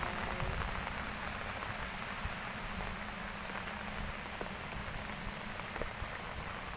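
Heavy rain falling, a steady hiss of drops on surfaces with scattered sharper drips.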